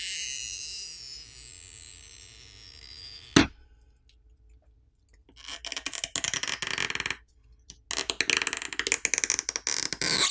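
Stretch-release adhesive pull tabs being drawn out from under a phone battery: a crackling, peeling sound whose pitch slides downward, a sharp snap about three seconds in, then two more spells of dense crackling as the strips stretch and pull free.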